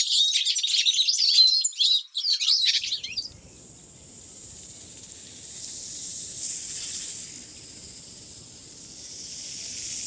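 Rapid, high-pitched bird chirping for about the first three seconds, which stops suddenly and gives way to a long, breathy hiss that swells and fades twice.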